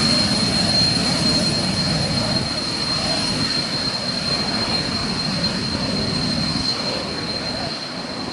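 CM.170 Magister's twin Turbomeca Marboré turbojets running as the jet taxis by, a steady high whine over a rumble that fades slowly as it moves away.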